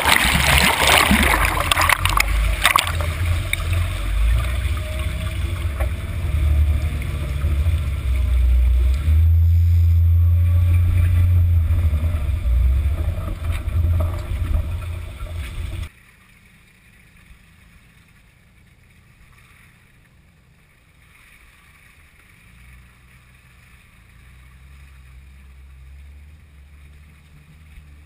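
Water splashing and rushing over the microphone as a Jeep Wrangler JK drives through deep water, over a heavy, deep rumble. About sixteen seconds in the sound cuts off abruptly to a much quieter low rumble that swells slightly near the end.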